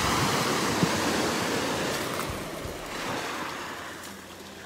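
Surf washing up the shore: a wave rushes in at the start, loudest for about two seconds, then fades, with a smaller surge about three seconds in.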